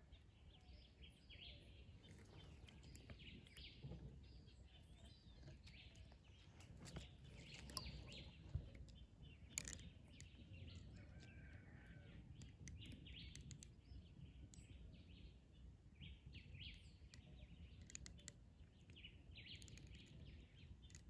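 Faint wild birds calling and chirping here and there over quiet woodland background noise, with a few sharp clicks about eight to ten seconds in.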